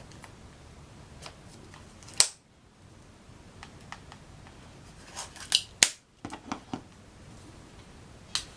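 Scattered sharp clicks and snips from opening the AirPods packaging. The loudest comes about two seconds in and a cluster around six seconds in, and after two of them the sound cuts briefly to dead silence.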